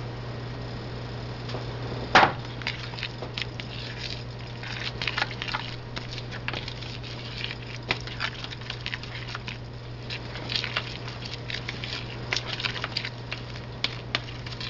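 Metal spoon stirring a thick corn-kernel fritter batter in a bowl: wet squishing and scraping with frequent light clicks of the spoon against the bowl, and one sharper knock about two seconds in. A steady low hum runs underneath.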